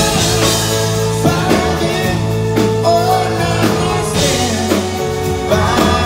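Male vocal group singing a pop song over a backing band with keyboard, guitar and drums.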